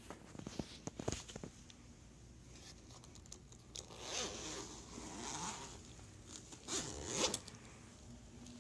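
Zipper on a soft-sided pet carrier being pulled open, a long rasping pull and then a shorter one, with a few light clicks from handling before it.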